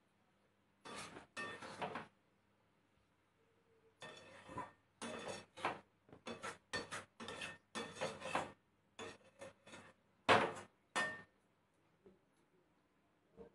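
A spatula stirring thick, jaggery-coated elephant apple pickle in a metal kadai: a string of short scrapes and knocks against the pan, with a pause of about two seconds early on.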